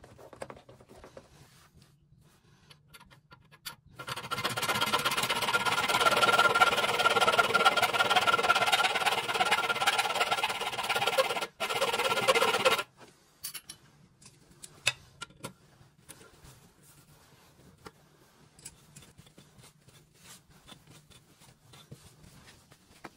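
Small power tool cutting down the excess of a toilet closet bolt, running steadily for about nine seconds with a brief stop near the end, then cutting off sharply. Light clicks and taps of handling before and after.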